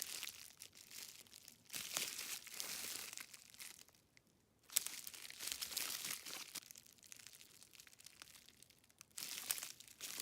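Plastic packaging crinkling as it is handled and unwrapped, in several separate bursts with a brief quiet gap about four seconds in.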